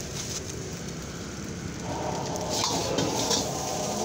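Stir-frying in a steel wok: a steady rush from the burner, then about halfway through louder sizzling as rice and vegetables are stirred, with the metal ladle scraping against the wok.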